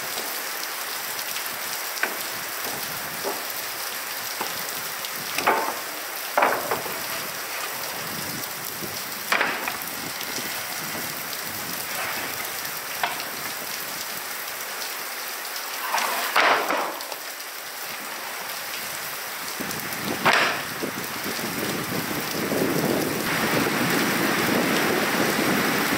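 Steady rain falling on a barn's metal roof, with about five separate knocks and thuds as a wooden pallet and heavy rubber mats are dropped onto a steel grid gate. The rain noise swells louder over the last few seconds.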